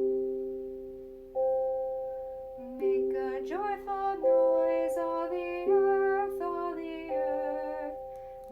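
Music: a children's song opening with struck keyboard chords that fade slowly, joined about three seconds in by a sung melody over changing chords.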